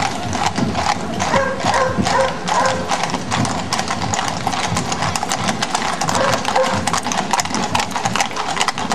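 Many horses' hooves clip-clopping on asphalt as a mounted troop walks past close by: a dense, irregular clatter of hoof strikes.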